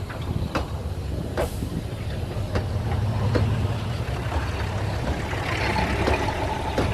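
Steady low rumble of a train with irregular sharp clicks and knocks, and a brief hiss about five and a half seconds in.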